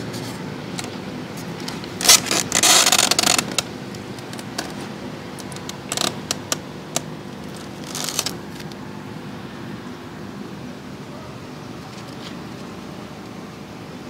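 Hands handling plastic parts of a hydroponic tub: a scraping rustle about two seconds in that lasts over a second, a few short clicks and rustles around six and eight seconds, over a steady low hum.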